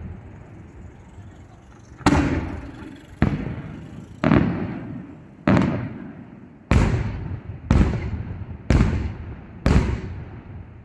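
Aerial firework shells bursting in a fireworks display: eight sharp bangs, the first about two seconds in and then roughly one a second, each followed by a rolling echo that fades away.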